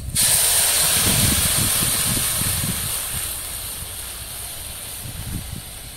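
Rice starch water poured into a hot wok of mustard oil with fried green chillies and garlic: a sudden loud sizzle and hiss as the liquid hits the hot oil, dying down gradually over the next few seconds as the pan cools.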